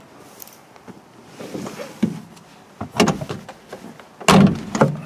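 Someone climbing into a 1951 Lanchester LD10: rustling and a few knocks, then the car door shutting with a heavy thump near the end, followed by a second, smaller knock.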